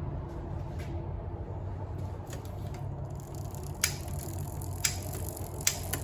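Shimano Dura-Ace shifter and derailleur on a vintage road bike clicking through gear changes: three sharp clicks about a second apart in the second half, over a steady low hum.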